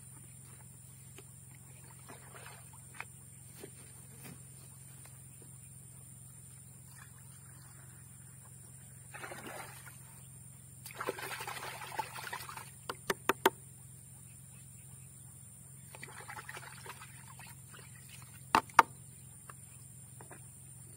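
Water splashing and pouring into a plastic bucket as it is filled from a ditch and a spray mix is made up, in three short stretches, with a quick run of four sharp knocks about halfway through and two more near the end.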